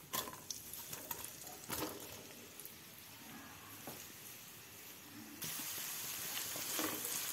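Hot olive oil in a wok crackling faintly with scattered small pops, then a sudden louder, steady sizzle from about five seconds in as sliced onions fry.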